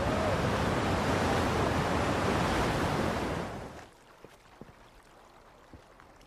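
Rushing whitewater of Colorado River rapids, a loud steady roar that cuts off suddenly about three and a half seconds in. A much quieter background with a few faint clicks follows.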